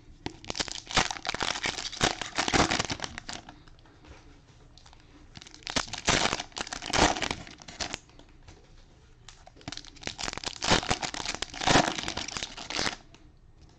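Cellophane wrappers of trading-card cello packs crinkling and tearing as they are ripped open, in three bouts of a few seconds each.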